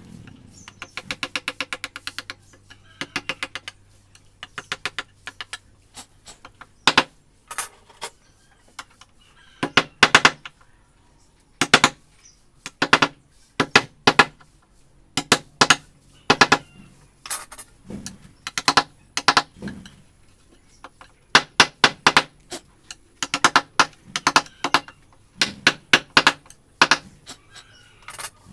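Carving chisel being struck with a mallet into wood, in quick runs of sharp taps with short pauses between runs.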